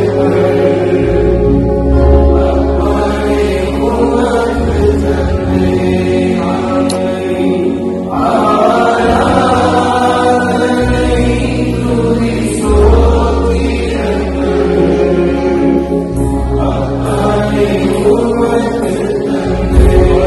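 A congregation singing a worship song together as one large choir of voices, over sustained low accompaniment notes that change every couple of seconds.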